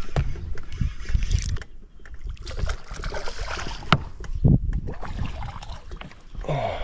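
A hooked bass splashing and thrashing at the surface beside the boat as it is fought in and grabbed, with a few sharp knocks of handling on the boat.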